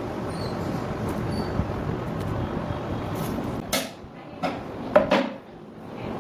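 A steady rushing noise, then three sharp knocks of wood on wood in quick succession, the last one the loudest.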